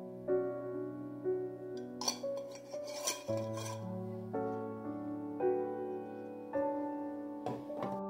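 Soft solo piano music with slow, sustained notes. Over it come a few short clinks from a glass candle jar and its metal screw lid being handled, about two and three seconds in and again near the end.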